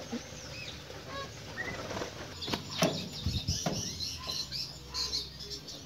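Birds chirping in the background, with scattered soft clicks and rustles and a brief low thump about three and a half seconds in.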